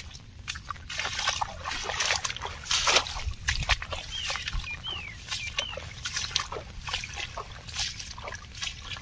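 Footsteps swishing and squelching through waterlogged grass, an irregular run of wet steps. Midway a bird gives three short, falling chirps.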